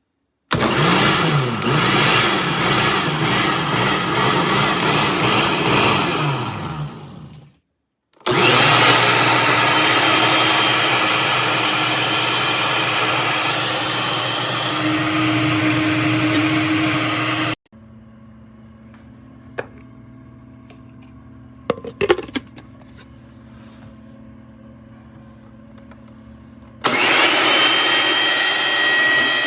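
Hamilton Beach Wave Crusher countertop blender's 700-watt motor running in three separate loud runs that start and stop abruptly. In the first run the pitch wavers up and down. Between the second and third runs there is a quieter stretch with a few sharp clicks and knocks.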